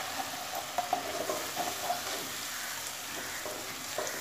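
Onion and spice paste sizzling in oil in a granite-coated kadai while a spatula stirs in freshly added chilli powder, salt and turmeric: a steady sizzle with irregular scraping strokes and a few light clicks of the spatula against the pan, about a second in and again near the end.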